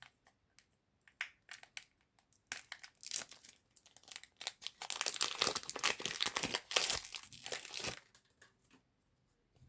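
Foil wrapper of a Pokémon trading card booster pack being torn open and crinkled: a few light rustles at first, then about five seconds of dense crinkling and tearing that stops about eight seconds in.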